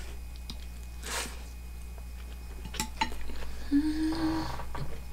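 A person chewing a mouthful of horse-meat sushi. About three seconds in come a couple of sharp clicks as chopsticks are laid on a plate, then a short closed-mouth hummed "mmm" of enjoyment.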